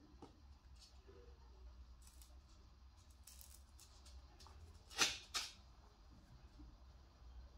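Faint scratching and light clicks of a pen-shaped engraving tool working the hard skin of a dried gourd, with two sharper clicks about five seconds in.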